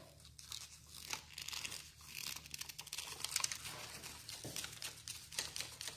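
Faint, irregular small clicks and scratches of insulated copper wires and a 4-way switch being handled as the wires are fitted to the switch's terminal screws.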